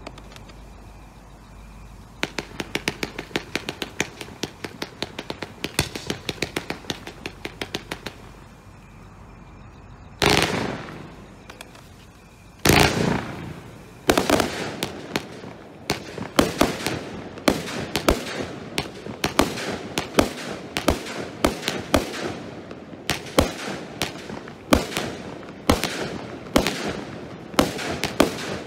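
Brothers Pyrotechnics 'The Rival' roman candle combination barrage firing. A fast run of small pops lasts several seconds, then come two longer, louder bursts about ten and thirteen seconds in. After that a steady volley of sharp bangs follows, about two a second.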